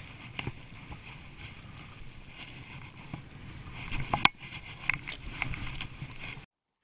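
Skis running downhill through powder snow, with wind rushing over the camera microphone, scattered knocks and one sharp thud a little past four seconds in. The sound cuts off suddenly near the end.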